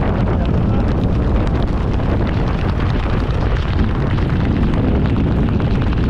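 Steady, loud wind buffeting an action camera's microphone as a tandem parachute descends under an open canopy, a continuous low-pitched rush with no breaks.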